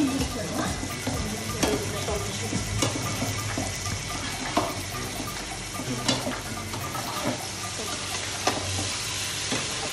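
Paneer cubes and green peas sizzling steadily in hot oil in a non-stick frying pan, with a spatula now and then scraping and clicking against the pan as it stirs.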